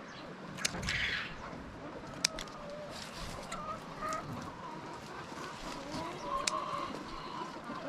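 Chickens clucking, with a few sharp clicks along the way.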